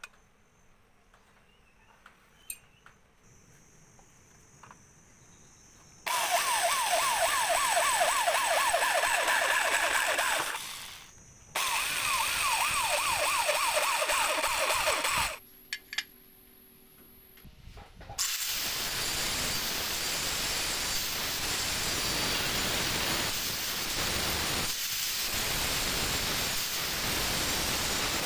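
Near quiet at first. Then an electric drill bores into a scrap-steel plate in two runs of about four seconds each, with a short pause between them. From about two-thirds of the way through, an angle grinder cuts the steel plate steadily.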